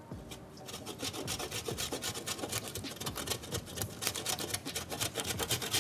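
Cheese being grated on a metal box grater: quick, rhythmic rasping strokes, several a second, starting about a second in and getting louder.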